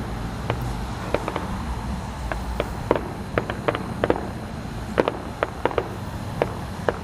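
Fireworks going off: irregular sharp pops and cracks, a few each second, over a steady low rumble.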